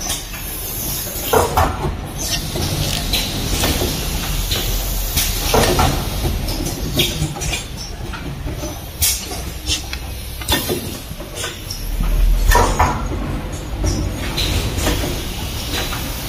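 Automatic rapid test kit assembly machine running, with a steady low hum and irregular mechanical clacks and knocks every second or two.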